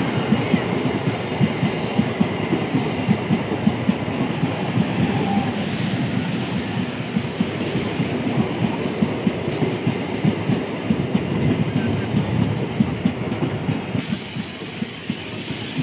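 MEMU electric multiple-unit train rolling past, its wheels clattering rapidly over the rail joints with a steady rumble that eases slightly toward the end.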